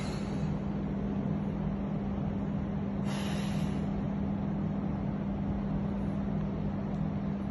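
A steady low hum runs throughout, with one short, hissing exhale about three seconds in, a weightlifter breathing out on a seated dumbbell shoulder press.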